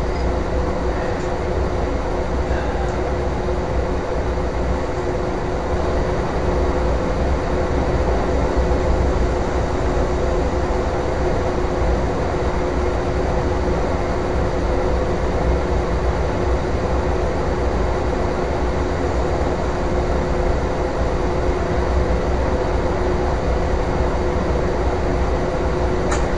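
Foundry furnace melting aluminum, its burner running steadily: a constant low rumbling noise with a steady hum.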